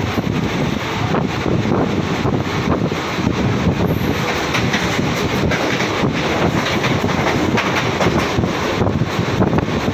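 Mumbai suburban local train running along the track: a steady rumble of wheels on rails, with wind buffeting the microphone and occasional light clicks.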